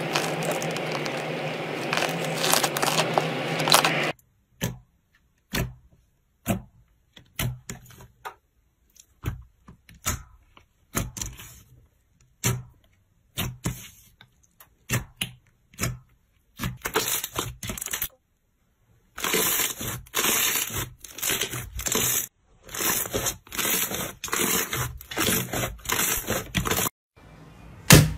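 Hands pressing and squeezing slime, making wet crackling and popping sounds. First comes a dense run of crackling as the slime is pushed through a wire grid. Then there are scattered sharp pops and clicks, and in the last third a string of short crackly squishing bursts.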